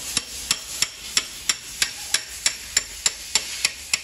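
A metal hammer tapping the rear axle of a Royal Enfield Himalayan, driving it through the swingarm and wheel hub. The blows are sharp, light and evenly spaced, about three a second.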